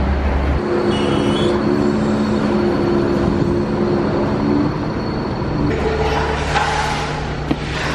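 Heavy machinery running with a steady hum that changes in pitch about two-thirds of the way through, while a scissor lift is handled off a low-loader truck; a single sharp click near the end.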